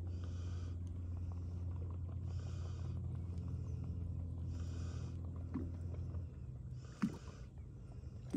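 Minn Kota electric trolling motor giving a steady low hum that cuts off about six seconds in, with a soft hiss coming back about every two seconds and a couple of light knocks on the boat.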